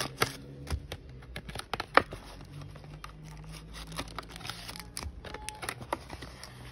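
Plastic blister packaging of a Pokémon card three-pack crinkling and clicking as it is pulled open by hand, with foil booster packs rustling as they are taken out. There are irregular sharp cracks, the loudest about two seconds in.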